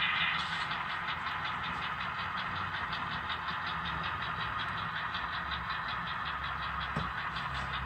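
A 12 mm gauge model diesel locomotive of a Transnet Class 35-800 running along a model railway track and pulling wagons. It makes a steady whirring hum with a fast, even ticking, several ticks a second.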